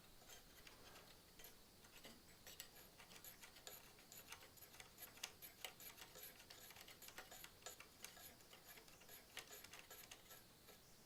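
Faint, irregular small clicks and ticks of screws and metal parts being handled while the backplate of an Asus ROG 240 mm water cooler is fitted and screwed onto a PC motherboard.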